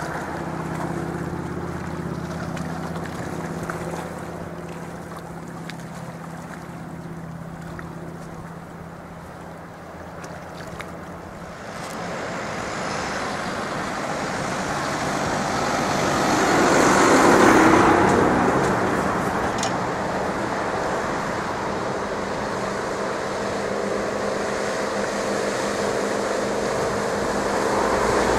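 Bertram 33 Flybridge motor yacht running at speed: a steady engine drone with the hiss of its bow wave and wake. It swells to its loudest about two-thirds of the way through, then settles into a steady drone.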